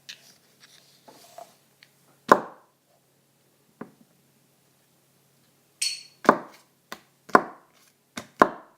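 A knife chopping down onto something on a hard surface. There is one hard knock about two seconds in and a lighter one a second later, then a quick run of five or six knocks in the last three seconds, the first of them with a brief metallic ring.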